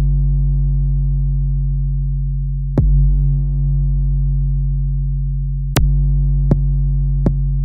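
Background electronic music: a sustained low synth drone with sharp clicks laid over it a few seconds apart, coming more often near the end.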